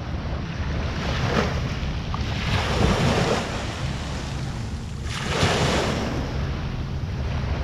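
Waves washing up on the shore, three swells of surf rising and falling, the biggest about halfway through, over a steady low rumble of wind on the microphone.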